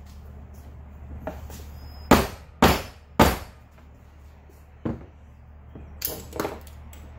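Hammer blows on metal, tapping a seized bearing's inner ring off a GT bottom bracket spindle: three hard strikes about half a second apart a little past two seconds in, then three lighter knocks a few seconds later.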